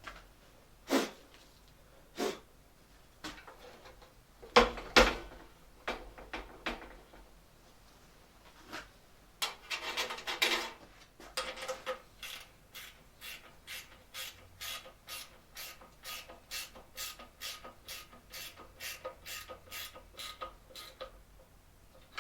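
Scattered knocks and clatter of metal parts being handled, then a steady run of regular hand-tool strokes on metal, about two a second, with a faint metallic ring.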